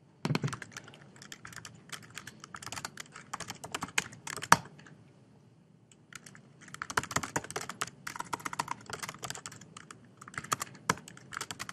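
Fast typing on a computer keyboard: a run of keystrokes, a pause of about two seconds, then a second run, with a few sharper key hits such as the Enter key.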